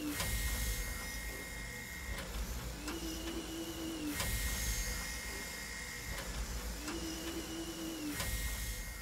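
A machine whirring in a repeating cycle, about every four seconds: a low wavering hum, then a steadier high whine lasting about two seconds.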